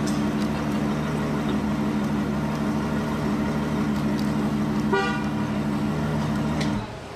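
Novitec N-Largo Ferrari F12's V12 engine running at a steady, unchanging note, with a short beep about five seconds in. The engine sound drops away sharply near the end.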